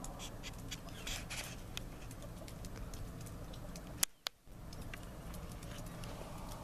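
Faint outdoor background noise with scattered soft clicks and rustles. A sharp click comes about four seconds in, followed by a brief drop to near silence.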